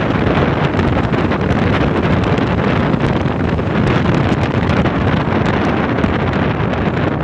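Steady wind noise buffeting the microphone of a motorcycle moving at road speed.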